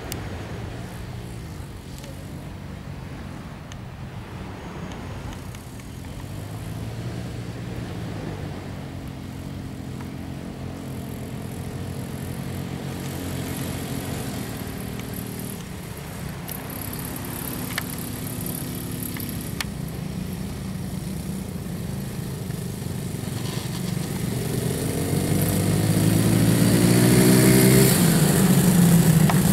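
Engines of two small quad bikes (ATVs) running on sand, their pitch rising and falling with the throttle. Near the end one comes closer and gets much louder.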